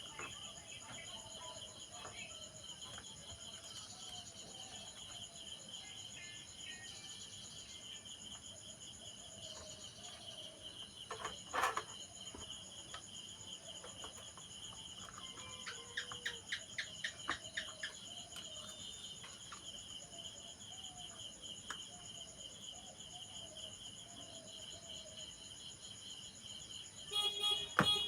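Insects chirring steadily in the background. A single sharp click comes about twelve seconds in, a quick run of ticks follows around sixteen to seventeen seconds, and a louder clatter comes near the end.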